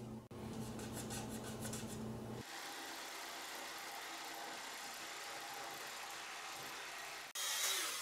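A faint steady hum at first. About two seconds in, a reciprocating saw cutting 3-inch black ABS pipe makes a steady noise. About seven seconds in it cuts off, and a louder power drill starts boring holes in the pipe.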